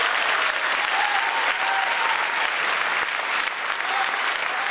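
Crowd applause: a dense, steady clapping.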